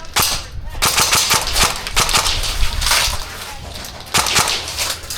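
Airsoft guns firing rapid full-auto bursts: a dense clatter of shots for about the first three seconds, then shorter scattered bursts.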